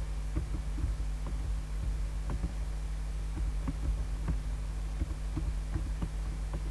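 Steady low electrical hum with several fixed tones, with faint irregular clicks scattered through it.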